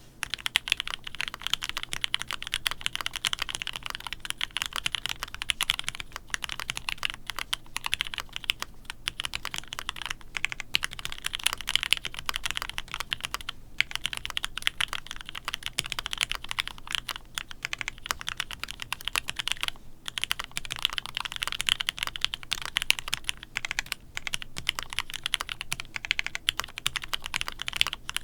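Fast, continuous typing on a GOK 7v mechanical keyboard with Gateron Black Ink linear switches on a foam-dampened polycarbonate plate. The rapid key clicks pause briefly a few times.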